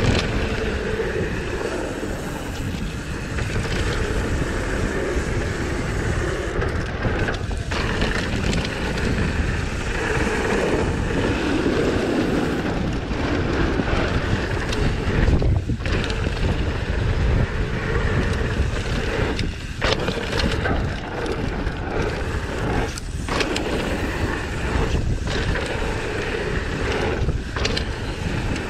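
Mountain bike running fast down a dirt singletrack: wind buffeting the camera microphone over the rumble and rattle of the tyres and bike on the trail.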